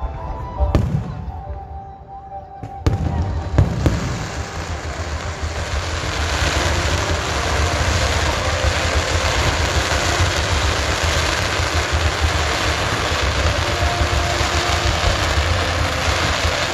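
Fireworks going off: a few separate sharp bangs in the first four seconds, then a dense, continuous barrage of rapid bursts with a heavy low rumble.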